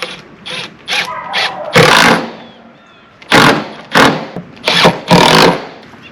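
A power driver running screws in short bursts, fastening hanger strap to a wooden 2x4 frame: several quick loud runs of a few tenths of a second each, the longest near the end.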